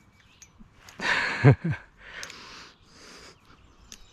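A person breathing out hard with a short falling grunt about a second and a half in, followed by two softer breathy exhales. A few faint small clicks near the end.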